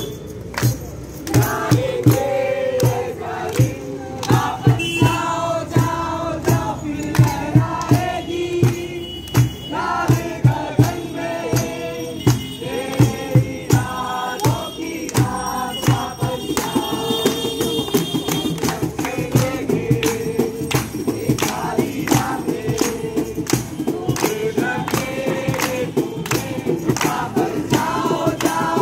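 A group of people singing a song together, accompanied by acoustic guitar and a barrel drum beaten in a steady rhythm.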